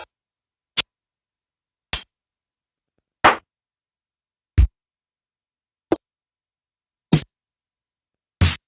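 Stock drum samples of a Teenage Engineering PO-33 K.O. pocket sampler auditioned one at a time: seven short, different drum-machine hits about every 1.3 seconds, one of them a deep kick about halfway through.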